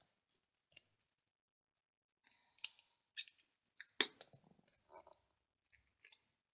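Faint rustles and small clicks of fingers handling small card pieces and foam adhesive dimensionals, peeling and pressing them on, with a sharper tap about four seconds in.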